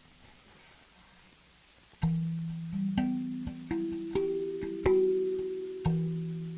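Slow meditative melody on a plucked string instrument. A note fades out, and about two seconds in single notes begin, plucked roughly one or two a second, each ringing on under the next.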